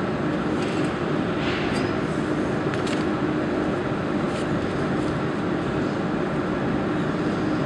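Steady hum and noise of machinery running, with a low steady tone and a few faint clicks, the sharpest about three seconds in.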